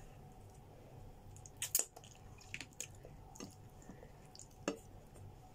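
Hands handling food and wrapping at a plate of grilled chicken: a few short, sparse clicks and crackles, the loudest pair about a second and a half in, over a faint low hum.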